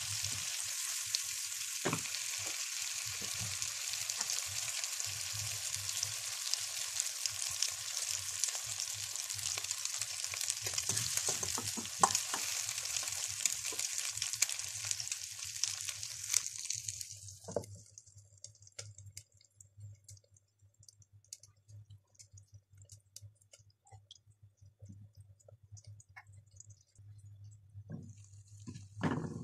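Eggs and milk sizzling in a frying pan, with scattered pops and clicks. The sizzle dies away about two thirds of the way through, leaving faint ticks, and near the end there is a short clatter as a steel plate is set over the pan as a lid.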